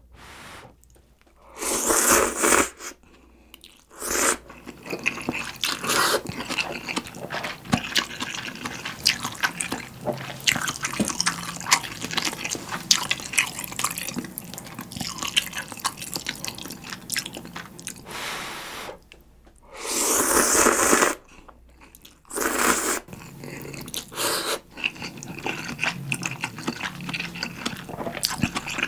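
Close-miked eating of instant ramen: loud noodle slurps about two seconds in and again about two-thirds of the way through, with wet chewing and mouth clicks in between.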